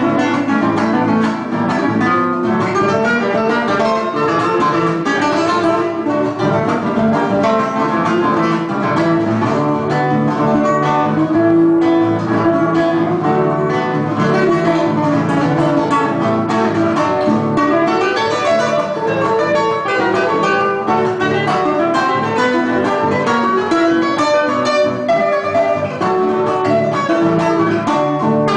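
A trio of classical guitars playing an Argentine gato cuyano folk instrumental together, with plucked melody lines over strummed and picked accompaniment.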